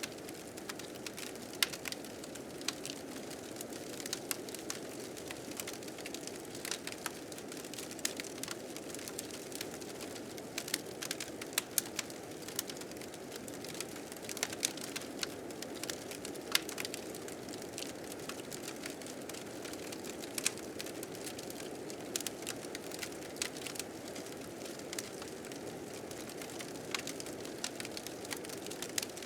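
Wood fire crackling with frequent irregular sharp pops, over a steady low blizzard wind.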